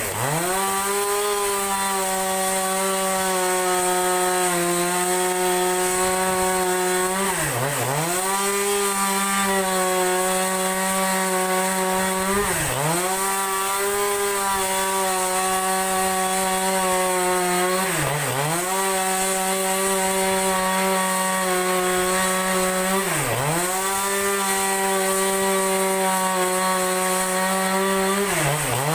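Chainsaw running at high revs while ripping a large log lengthwise, its engine pitch dipping sharply and recovering about every five seconds.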